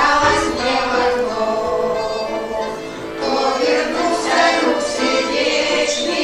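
A choir singing a song.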